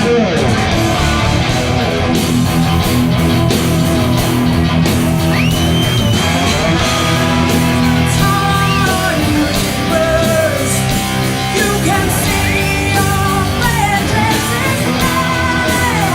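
Heavy metal band playing live, with electric guitars, bass and drums. A high sung vocal line with vibrato comes in about five seconds in over the band.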